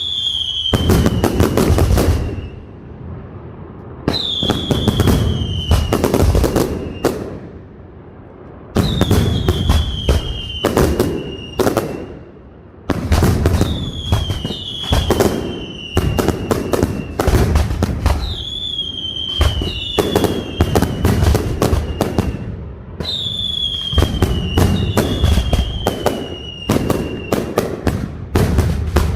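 Aerial fireworks display (a Valencian castillo): volleys about every four to five seconds, each opening with a whistle falling in pitch and followed by a rapid string of sharp bangs.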